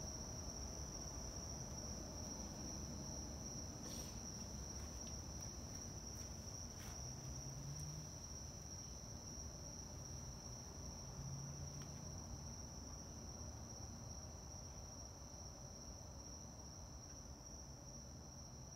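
Faint, steady, high-pitched insect trilling, like crickets, over a low rumble.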